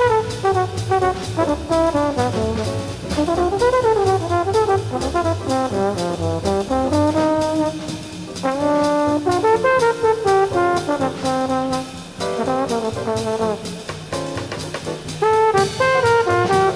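Jazz trombone solo: one trombone playing quick running phrases that climb and fall with short breaks between them, over double bass, piano and drums with regular cymbal strokes.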